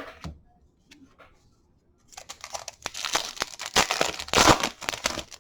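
A few light handling ticks, then from about two seconds in a baseball card pack's foil wrapper is torn open and crinkled for about three seconds.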